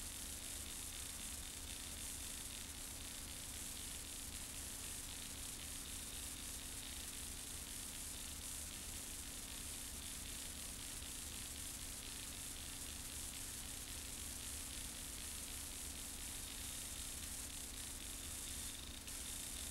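Steady hiss and static from the noise floor of an old videotape recording, with a faint low hum underneath.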